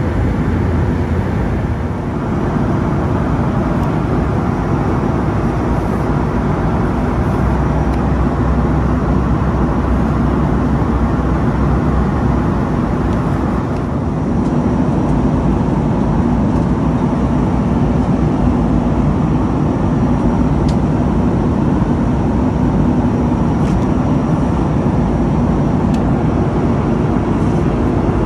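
Steady cabin roar of a Boeing 757-200 in flight, from its Pratt & Whitney PW2037 engines and the air rushing past the fuselage. There is a slight dip about halfway through.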